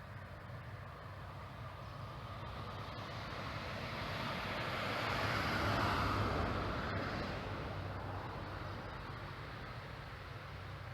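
A vehicle passing by: a smooth rushing noise that swells to a peak about six seconds in and then fades away.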